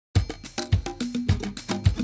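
Music: the opening of a Mediterranean-pop track, starting abruptly just after the beginning with a steady kick-drum beat, clicking hand percussion and a bass line.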